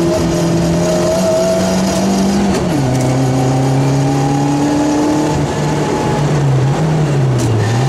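Rally car engine heard from inside the cockpit, running hard: the revs drop sharply about a third of the way in, then climb slowly, and dip briefly again near the end.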